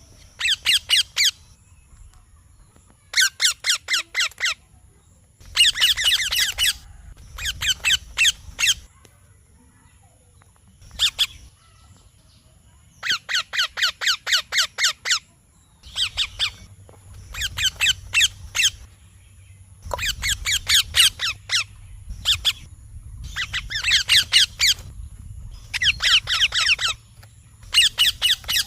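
Young Indian ringneck parakeet chirping in repeated bouts of rapid, evenly spaced high notes. There are about a dozen bouts of a second or so each, with short pauses between them.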